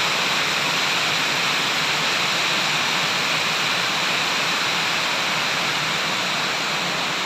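Flowing water rushing steadily, an even, unbroken sound with no splashes or breaks.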